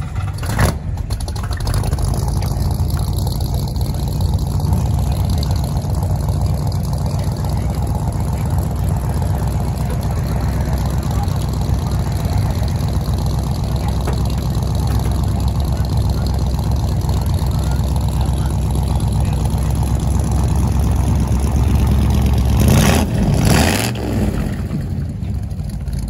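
Car engine idling, a steady low sound, with a brief louder burst about 23 seconds in.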